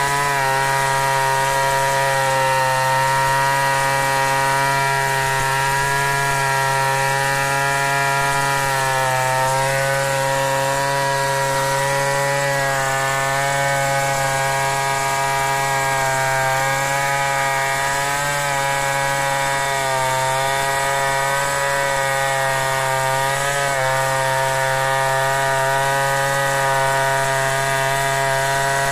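Stihl 070 two-stroke chainsaw held at full throttle while freehand ripping a log lengthwise into planks. Its engine tone is steady, with the pitch dipping briefly now and then.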